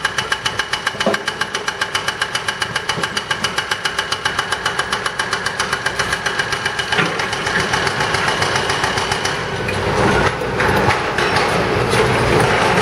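Hydraulic breaker on an excavator pounding concrete pavement, a rapid, steady hammering over the diesel engines. About nine seconds in the hammering stops and a louder, rougher machine noise takes over.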